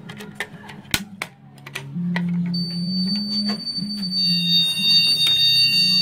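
Manual call point on a Morley IAS fire alarm system clicking as it is pressed. About two seconds in, the alarm goes off: a loud, steady low sounder tone, joined shortly after by several steady high-pitched tones.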